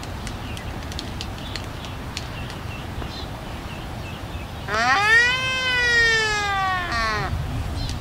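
Waved albatross courtship display: a few faint bill clacks from the bill-fencing, then about five seconds in a single long, drawn-out call of about two and a half seconds that rises in pitch and then levels off.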